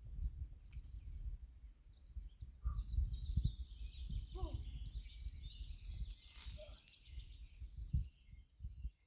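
Wind buffeting the microphone in uneven low gusts, with a small songbird singing rapid high trills from about two seconds in until near the end.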